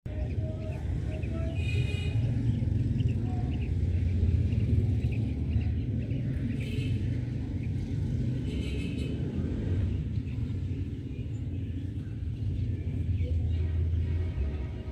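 Quails giving short chirping calls, with three clearer bursts about two, seven and nine seconds in. A steady low rumble runs underneath and is the loudest sound.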